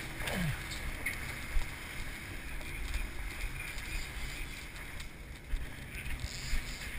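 57-foot Bertram sportfishing boat running under way: a steady engine rumble with the wake rushing and wind on the microphone. A short falling squeak comes near the start and a sharp knock about a second and a half in.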